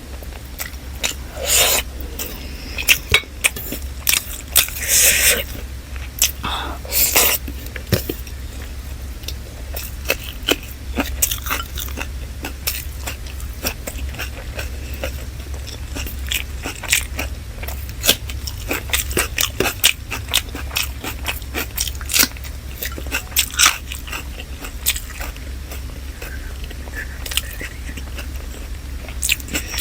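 Close-miked chewing and biting of chicken biryani and salad: many short wet mouth clicks and smacks with occasional crunches, over a steady low hum.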